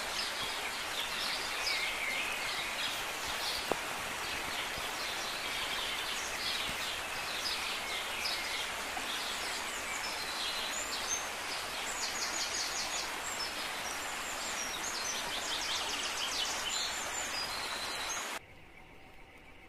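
Outdoor ambience: small birds chirping and trilling over a steady background hiss. Near the end the sound cuts off suddenly to a much quieter hiss.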